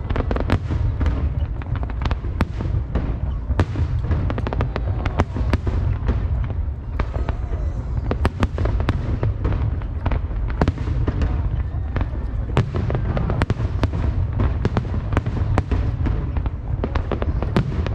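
Aerial firework shells bursting in rapid succession, many sharp cracks a second over a constant low rumble.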